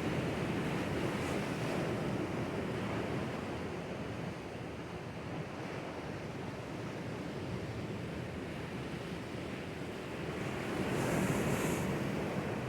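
Sea waves washing in over rocks along the shore, a steady rushing surf, with one wave surging in louder and hissier near the end.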